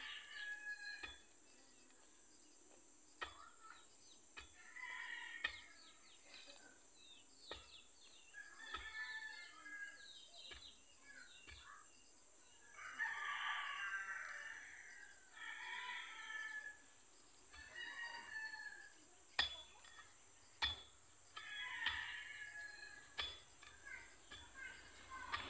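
Chickens calling in short bursts every few seconds, with a rooster crowing once about halfway through, the loudest call. A few sharp knocks fall in between.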